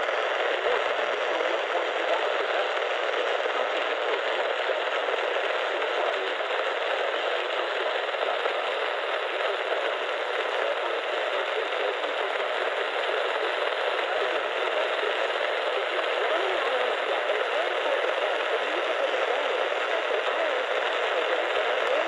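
Steady AM radio static hissing from the speaker of a Midland weather radio tuned to AM 1020, with no clear broadcast coming through.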